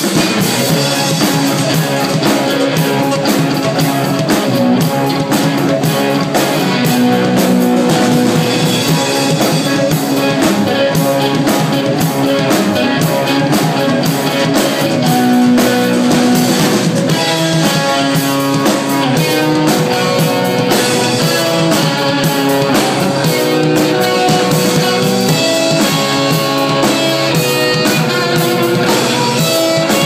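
Live rock band playing loudly: a drum kit, an electric guitar and a keyboard.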